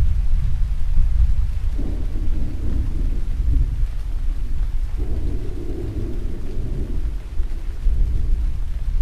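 Deep rolling thunder rumbling over steady rain, the rumble swelling about two seconds in and again about five seconds in.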